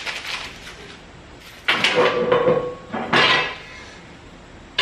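Steel parts of a motorcycle wheel chock being handled on a steel diamond-plate lift deck. Two loud metallic clanks with a short ring, a little under two seconds in and again about a second later, over quieter rustling and scraping.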